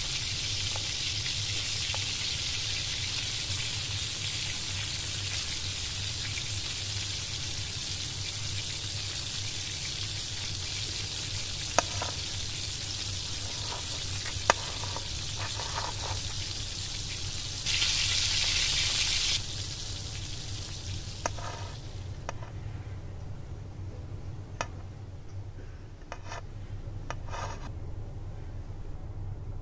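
Egg omelette sizzling in a nonstick frying pan, with a couple of sharp clicks of a spatula against the pan. The sizzle gets louder for a second or two about two-thirds through, then dies away. Near the end come a few short crackles as the toasted bread of the sandwich is pulled apart.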